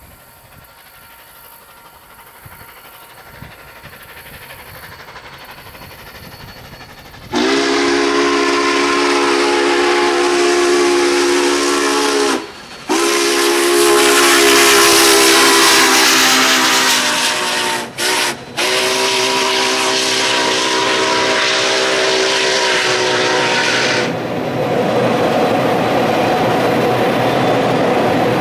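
Union Pacific 844, a 4-8-4 steam locomotive, draws near with a faint, slowly growing rumble, then blows its multi-tone chime whistle in the grade-crossing pattern, long, long, short, long, each blast sliding up in pitch as it opens. After the whistle the locomotive and train pass close by with a loud, steady rumble.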